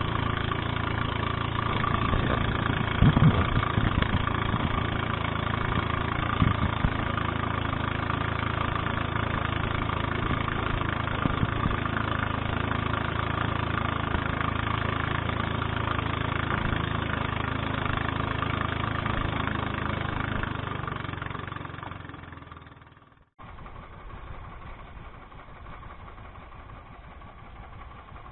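Small engine of a motorized outrigger boat running steadily under way, with a few thumps in the first ten seconds or so. Near the end it fades out, leaving a quieter steady background.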